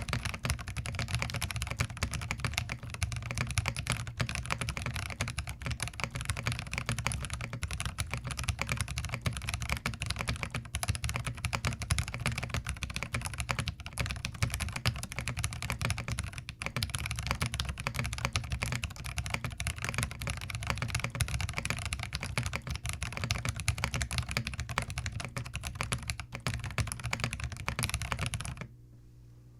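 Fast, continuous typing on a Zoom TKL mechanical keyboard fitted with Everglide Oreo linear switches, a dense patter of keystrokes that stops abruptly about a second before the end.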